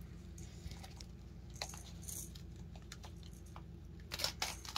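A dog tearing apart a soccer ball with its teeth: scattered scratchy rips and small clicks, with a louder cluster near the end.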